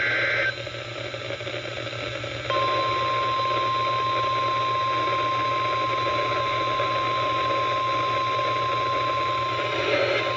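The last half second of an Emergency Alert System SAME data burst, a warbling two-tone signal that cuts off abruptly. After about two seconds of radio hiss, the NOAA Weather Radio 1050 Hz warning alarm tone comes on and holds as one steady pitch over receiver hiss and hum.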